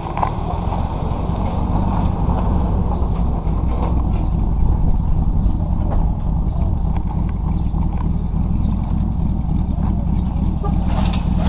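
A vehicle's engine running with a steady low rumble, getting slightly louder over the first few seconds.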